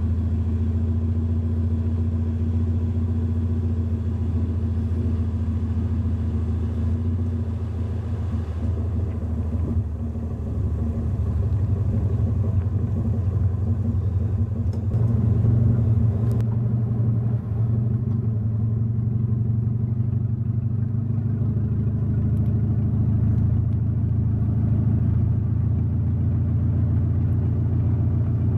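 First-generation Mazda Roadster (MX-5 Miata) four-cylinder engine idling with a steady, low exhaust rumble, getting a little louder from about twelve seconds in.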